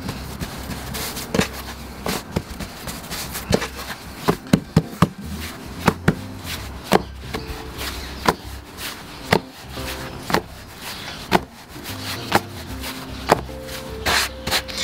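Neapolitan pizza dough being pressed out and slapped from hand to hand onto a floured wooden board to stretch the base: a run of sharp slaps, roughly one a second, some in quick pairs. Quiet background music under it.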